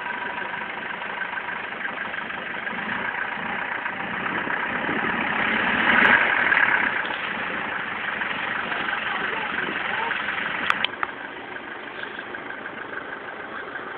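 Land Rover engine running as it works through deep mud. It grows louder to a peak about six seconds in, then settles back. A sharp click comes near eleven seconds in, after which the sound is quieter.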